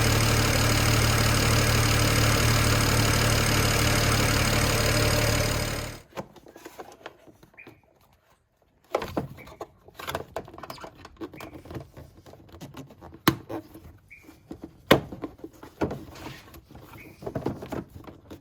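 BMW N54 twin-turbo straight-six running steadily at idle after the oil cooler hose repair, stopping suddenly about six seconds in. Scattered clicks and knocks follow.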